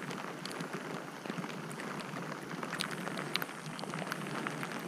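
Steady rain falling on the lake surface, an even hiss with many scattered close raindrop ticks.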